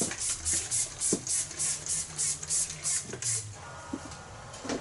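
Hand trigger spray bottle misting hair, squeezed in quick strokes of about three to four hisses a second, stopping about three and a half seconds in.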